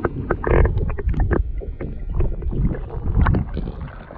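Muffled sound of a camera held underwater: low rumbling sloshing with many scattered sharp clicks and knocks, loudest about half a second in and again a little after three seconds.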